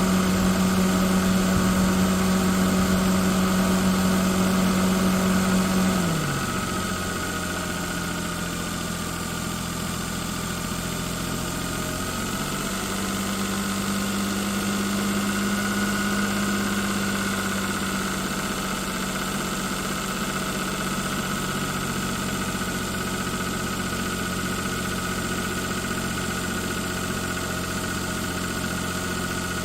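Engine running with an abnormal noise. It holds a steady speed, then drops to a lower idle about six seconds in, picks up slightly for a few seconds, and settles back to idle.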